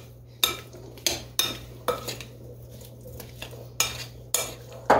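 A metal spoon stirring oiled, seasoned butternut squash cubes in a mixing bowl, with irregular clinks and scrapes of the spoon against the bowl over a steady low hum.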